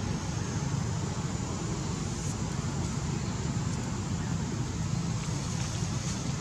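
Steady low outdoor rumble with a hiss above it, and a few faint clicks after the middle; no calls from the monkeys.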